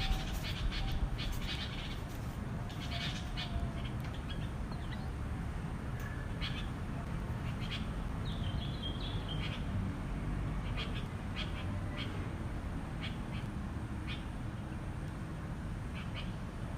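Small birds chirping at their nest in a rambutan tree: short high chirps scattered through, with a brief warbling phrase about eight seconds in, over a steady low rumble.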